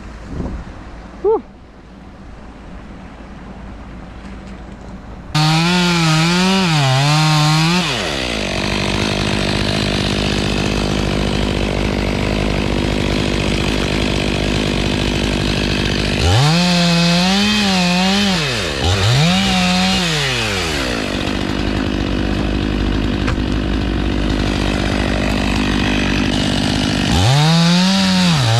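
Stihl chainsaw running loud from about five seconds in, revving up and down in several throttle sweeps with steadier running between; the first few seconds are much quieter.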